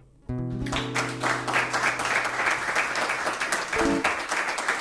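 Audience applauding, starting abruptly a moment in, with a low held chord ringing under the first few seconds.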